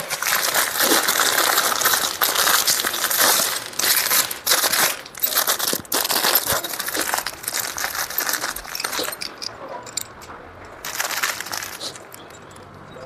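Dense crinkling and rustling handling noise with many small clicks and knocks while a hydraulic bed fitting is worked on and tightened by hand. It thins out after about nine seconds, with one more short burst near the end.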